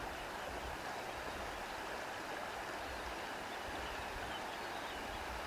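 Soft wind blowing steadily: an even rushing hiss with an uneven low rumble underneath.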